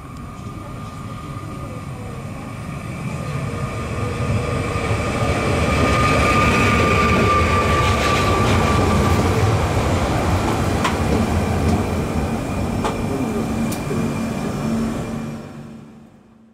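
Regional electric multiple-unit passenger train pulling in along the platform. Its running noise builds as it comes close, with a steady high whine at the loudest part and a few sharp clicks of the wheels over rail joints as it slows. The sound cuts off near the end.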